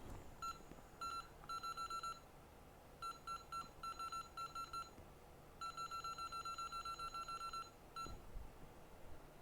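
Electronic beeper on microsoldering bench equipment sounding in quick runs of short identical beeps, about eight a second, in several bursts of up to two seconds.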